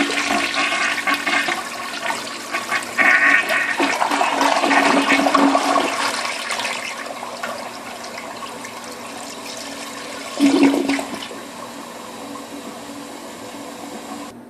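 Briggs Forward trap toilet flushing with an empty bowl: a loud rush of water for the first six or seven seconds, then easing into a quieter steady hiss of the refill. A brief louder surge comes about ten and a half seconds in.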